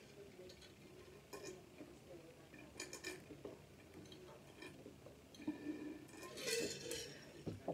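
A person gulping a drink from a water bottle: faint swallowing clicks every second or so, with a louder rush of noise about six and a half seconds in.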